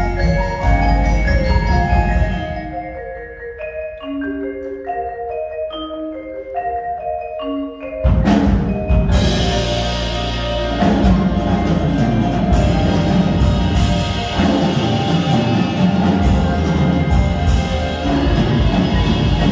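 Percussion ensemble playing on marimbas and xylophones with a low drum part. For a few seconds from about two seconds in, the mallet instruments play alone and more quietly, then about eight seconds in the full ensemble comes back in loudly with a sharp hit.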